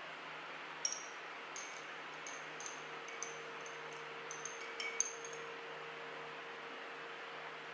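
A string of light clinks of small hard objects, about a dozen between one and five seconds in, each with a brief high ring, over a steady faint hiss.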